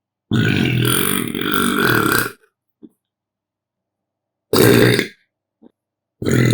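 Human burps: a long one of about two seconds, a short one about four and a half seconds in, and another beginning near the end.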